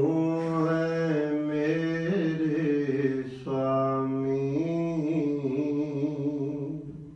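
A man's voice chanting in long, held notes: two drawn-out phrases with a brief break about three and a half seconds in, fading away near the end.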